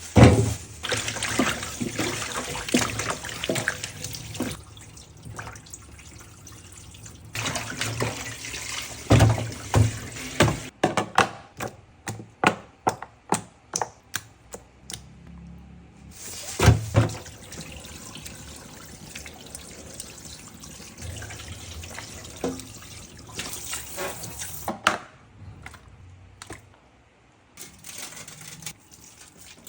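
Kitchen tap running into a sink in several stretches, as when items are rinsed, with a quick run of knocks and clicks about halfway through.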